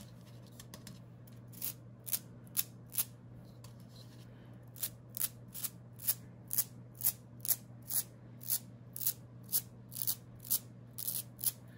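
Fingertip flicking the stiff bristles of a splatter brush, each flick a short crisp snap that spatters ink onto paper. A few scattered flicks at first, then a steady run of about two a second.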